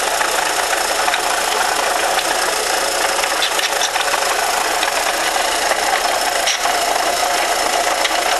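1998 Volkswagen Jetta's 2.0-litre four-cylinder engine running, with a repeated light knock over the steady engine noise. The cause of the knock is undiagnosed.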